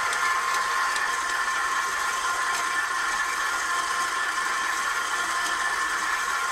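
KitchenAid 7-quart Pro Line bowl-lift stand mixer running at a steady speed, its motor giving an even whine while the flat beater churns thick butter cookie dough with flour being worked in.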